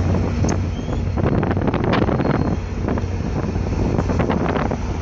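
VIA Rail passenger train rolling past, wheels clicking and clattering on the rails in quick irregular strokes over a steady low rumble, with wind buffeting the microphone.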